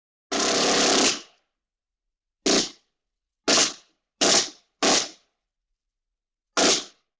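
Vintage film and cartoon stock gunshot sound effects: one longer blast of just under a second, then five short, sharp shots, the last after a longer gap, each with a brief decaying tail and dead silence between them.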